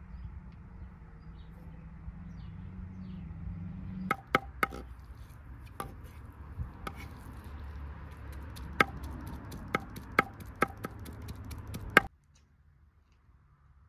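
Knife chopping on a wooden cutting board: about a dozen sharp knocks at an uneven pace, starting about four seconds in, over a steady low hum. Both stop abruptly near the end.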